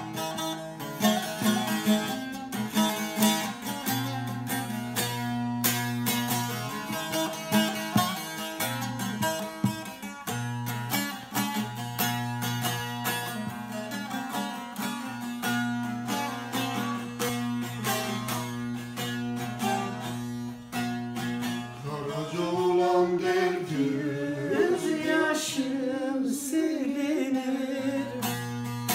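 Bağlama (Turkish long-necked lute) played in a folk melody, its plucked notes over a steady low note, with a voice joining in singing about three-quarters of the way through.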